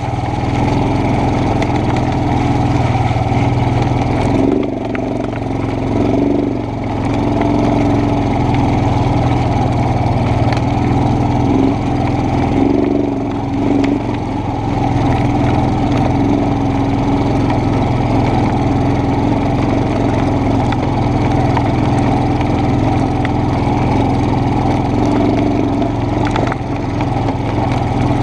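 ATV engine running steadily under the rider as it drives along a dirt trail, the pitch rising and easing with the throttle a few times, around five seconds in and again around thirteen seconds in.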